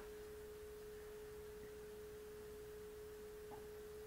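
A faint, steady single pure tone, a mid-pitched whine that holds one pitch, over low background noise.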